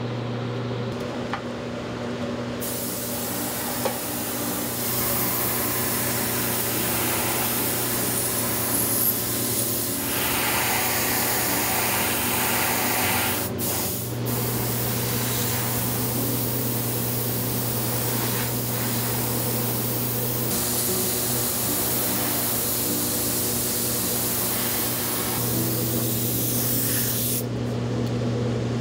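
Gravity-feed airbrush spraying with a steady high hiss, over the constant low hum of shop machinery. The hiss starts a few seconds in, cuts out briefly about halfway, and stops near the end.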